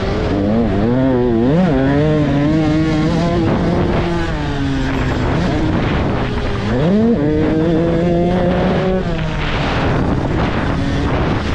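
Motocross dirt bike engine revving hard, its pitch rising and falling quickly as the throttle is worked, then climbing sharply about seven seconds in and holding high for a couple of seconds before the tone fades into a rougher noise.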